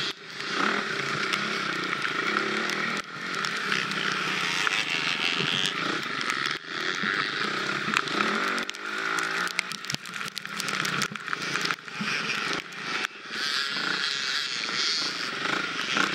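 Husqvarna FX 350 dirt bike's single-cylinder four-stroke engine running under load while riding, revs rising and falling constantly, with frequent knocks and rattles over rough ground.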